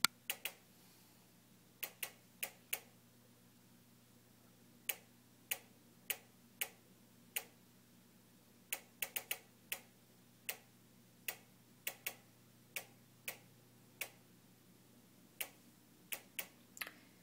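JennAir stove clicking on its own: irregular sharp ticks, some single and some in quick runs of two or three. It is a fault that repeated repair visits have not cured.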